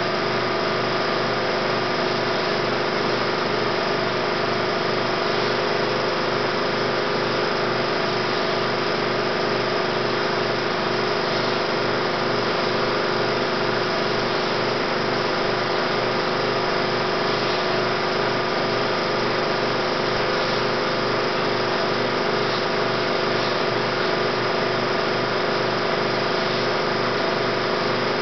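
16mm film projector running: a steady mechanical whir with a constant hum under it.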